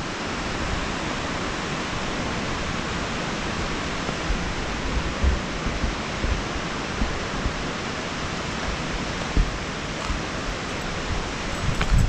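Steady rush of a mountain waterfall cascading over rock, with a few brief low thumps on the microphone.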